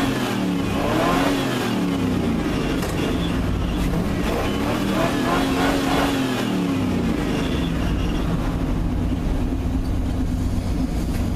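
Pickup truck engine revved up and down repeatedly, then holding a steady speed from about seven seconds in; the owner says the engine has been run hard enough to need a head gasket and now has a rod knock.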